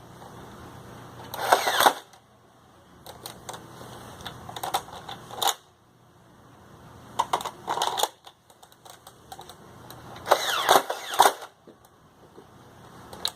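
Motorized Nerf Stampede blaster firing, its motor driving the plunger in several short mechanical bursts with a whirr that falls in pitch as it winds down.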